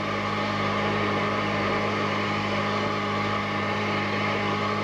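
Steady cockpit noise of a Tu-22 bomber: an even rushing hiss over a constant low hum.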